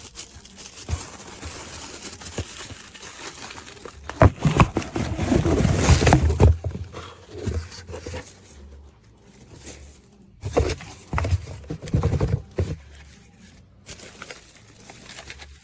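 Cardboard box and plastic packaging being opened and handled: scraping and crinkling, with two louder stretches of rustling and knocks, about four seconds in and again about ten seconds in.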